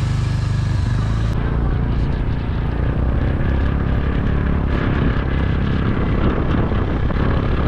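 Motor scooter on the move, with wind rumbling hard on the microphone over the scooter's engine running steadily.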